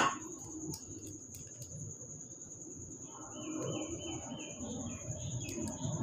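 A sharp knock at the very start, then soft handling sounds while dough is worked by hand. About three seconds in, a bird chirps in a quick run of short repeated chirps. A thin, steady high whine runs underneath.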